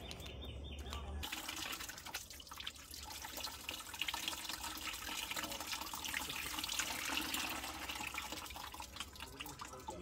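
Water running from a tap into a sink and splashing over hands being rinsed under it, starting about a second in.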